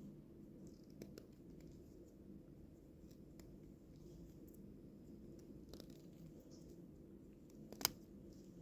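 Faint room tone with a few light ticks and scrapes, and one sharp click near the end.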